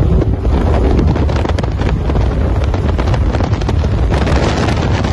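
A car engine running hard at full throttle during a street race, with wind rushing on the microphone and a fast run of sharp cracks and pops through most of the stretch.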